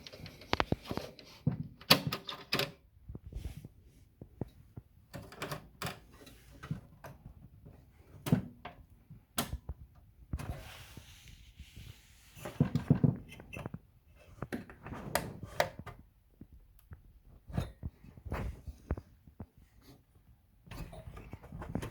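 Irregular clicks, taps and knocks of hands handling a graphics card and small parts during a fan repair, with no fan running.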